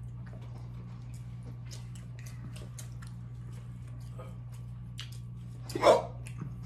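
Quiet eating sounds, small mouth clicks and smacks of chewing chicken wings, over a steady low hum. About six seconds in comes one short loud breath out through pursed lips, a reaction to the heat of very spicy wings.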